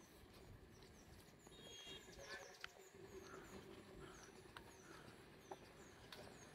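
Near silence: faint rural outdoor ambience, with small birds chirping softly and repeatedly over a low rumble, and a few faint clicks.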